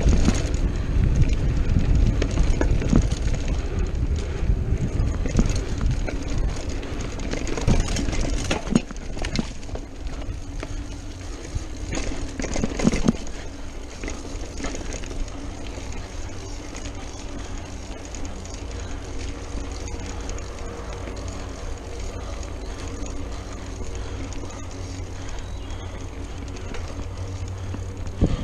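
Mountain bike riding fast over a dirt forest trail: tyre rumble and bike rattle over the rough ground, with wind buffeting the microphone. A few sharp knocks come near the middle, after which the ride settles into a quieter steady rumble.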